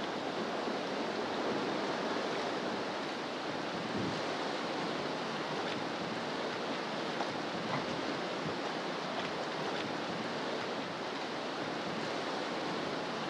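Fast, high river water rushing steadily past a drift boat: an even, unbroken hiss of current running well above normal flow.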